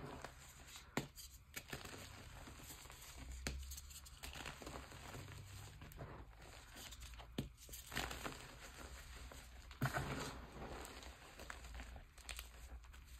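Hands crushing a pressed block of gym chalk and pressing into loose chalk powder: soft gritty crunching and rustling, with a few sharper crunches scattered through.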